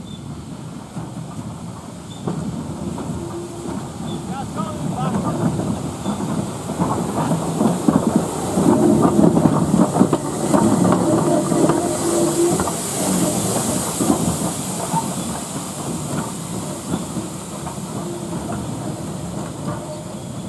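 BR Standard class 4 2-6-4T steam tank locomotive running past at low speed with no train, its rods and motion knocking and steam hissing. It grows louder as it approaches, is loudest as it goes by about halfway through, with a burst of steam hiss just after, then fades as it draws away.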